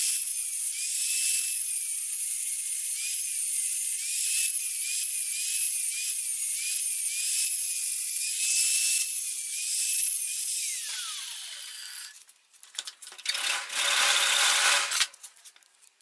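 Angle grinder with a thin cut-off disc cutting through the head of a steel bolt held in a bench vise; its whine wavers as the disc bites. About eleven seconds in, the grinder is switched off and its whine falls in pitch as the disc spins down. A second, shorter burst of noise follows near the end.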